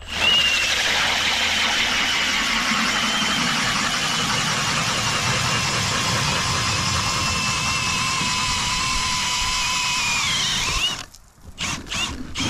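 Power ice auger boring a hole through lake ice, running steadily for about eleven seconds. Near the end its whine drops in pitch as it winds down and stops.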